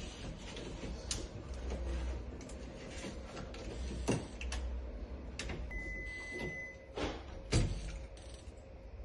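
Schlage keypad door lock being handled and operated: scattered clicks and knocks, with one steady high electronic beep about a second long just past the middle and a sharper knock soon after.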